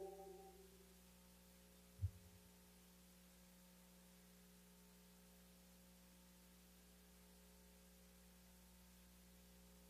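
Near silence: a faint steady hum, with one brief low thump about two seconds in.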